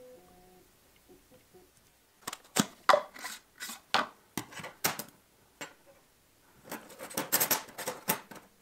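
Thin steel planer blades clinking and clattering against each other, their plastic case and a wooden workbench as they are handled and laid down. It starts about two seconds in as a string of separate clicks and knocks, then a quicker, denser run of clinks near the end.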